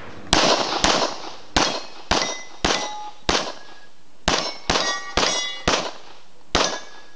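A pistol fired quickly at a rack of steel plates: about eleven shots in six seconds. Most hits are followed by the short metallic ring of a struck steel plate.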